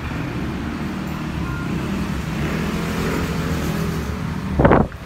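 Steady road traffic with engines running nearby, then one short loud thump near the end.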